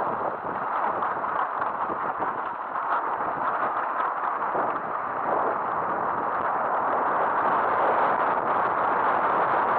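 Mountain bike rolling down a loose gravel trail: a steady crunch and rattle from the tyres on the stones and the bike's parts, mixed with a rush of wind on the camera, getting a little louder in the second half.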